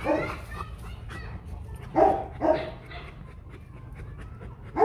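A dog barking: a pair of barks about half a second apart near the middle, with single barks at the start and at the end.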